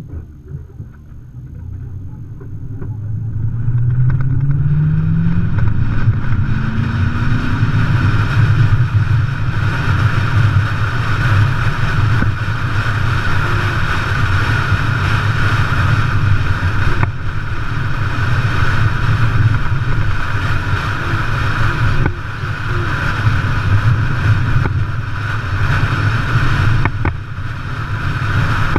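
Vehicle engine pulling away, its pitch rising over the first several seconds, then a loud steady drive along a dirt road with engine and road noise, broken by a few brief knocks.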